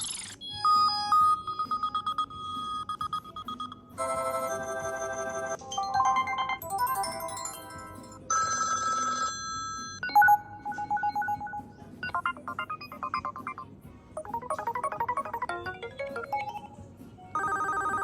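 A string of short electronic ringtones and notification tones from an HTC One X phone, a new one every second or two: beeping patterns, chords, fast trills and rising runs of notes.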